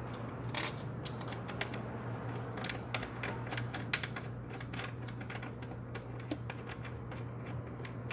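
Scattered small metallic clicks and taps as bolts are set into a throttle body and threaded in by hand, over a steady low hum.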